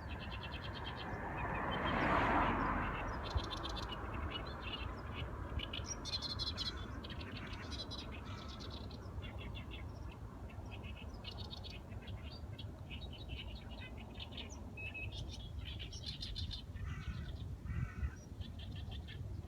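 Small birds chirping and chattering: many short rapid strings of high notes, one after another. A broad rush of noise swells and fades about two seconds in, over a steady low rumble.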